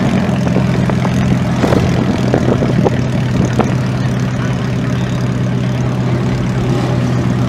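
Engines of a row of small demolition derby cars idling together in a steady, loud drone, with a few short sharp knocks in the first half.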